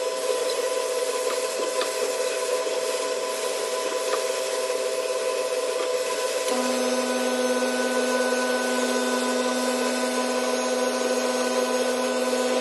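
A small power sander working a sculpture: a continuous rasp of abrasive rubbing over a steady motor hum. A lower hum tone comes in about six and a half seconds in.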